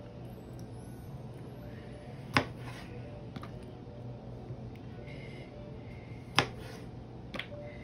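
Chef's knife cutting cherry tomatoes in half and striking through onto a plastic cutting board: two sharp knocks a few seconds apart and a lighter double knock near the end, over a steady low hum.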